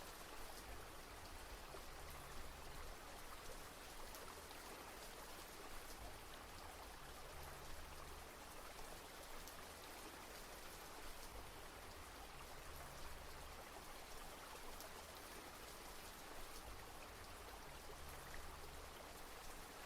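Steady, faint rain falling, with a low rumble underneath.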